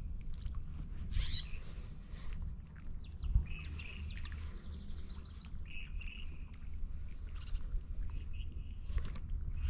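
Wind rumbling on the microphone, with several short bird calls over it.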